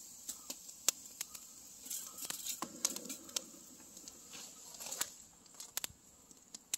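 Wood campfire crackling: irregular sharp pops and snaps from the burning sticks, with a short stretch of softer rustling noise in the middle.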